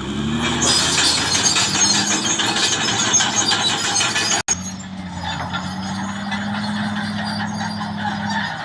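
CAT D6R XL bulldozer's diesel engine and steel tracks working, with heavy high-pitched track noise in the first half. It cuts off abruptly about four and a half seconds in, leaving a steady engine drone.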